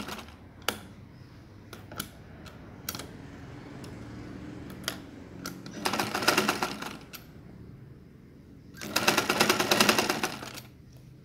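Sewing machine stitching fabric in two short runs of rapid needle strokes, one about six seconds in and one near nine seconds, each lasting a second or two. A few light clicks come in between.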